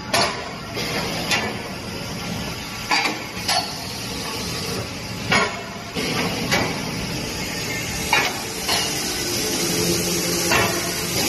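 Steel bars clanking in an automatic bar feeder for hot forging: about ten sharp metal-on-metal knocks at irregular intervals over steady machine noise.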